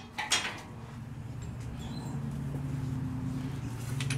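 Metal clinks of a socket and extension going onto a bumper bolt, then a steady low hum that starts about a second in.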